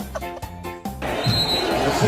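Background music. About a second in it cuts abruptly to a denser, noisier sound with repeated low pulses.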